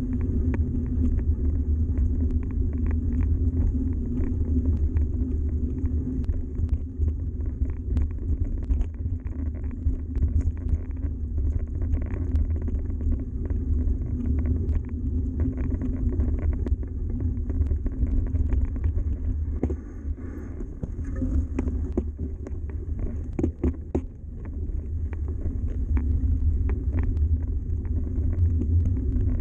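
Yeti SB130 mountain bike rolling over a gravel track: a steady low rumble from the ride, with scattered clicks and rattles from the bike over the rough surface. The rumble eases briefly about twenty seconds in, with a cluster of sharp clicks just after.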